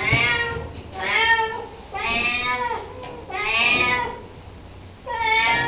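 Young domestic cat, a kitten of about five months, meowing over and over: five meows about a second apart, each under a second long.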